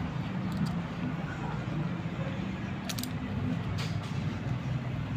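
Light metallic clicks of hand tools on the rocker arms of a Mitsubishi 4D35 four-cylinder diesel during a valve clearance adjustment, twice about three seconds in and once more a second later, over a steady low mechanical hum.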